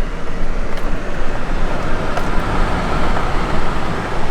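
Vehicle in motion: steady engine and road noise with a heavy low rumble.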